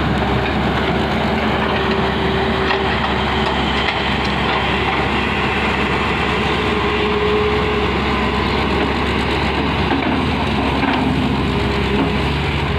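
Tata Hitachi Zaxis 470H excavator's diesel engine running steadily under load as the machine digs its bucket into blasted coal and rock, with a few faint knocks.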